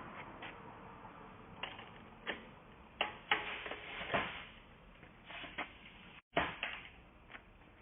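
Irregular light clicks and taps, about ten of them, from hands and tools working on a bicycle's drivetrain parts, with a very short cut-out of sound just after six seconds.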